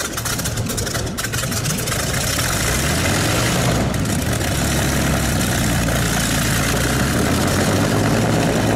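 Supermarine Spitfire's V12 piston engine starting up: it fires unevenly with pops at first, then settles into a steady idle with the propeller turning.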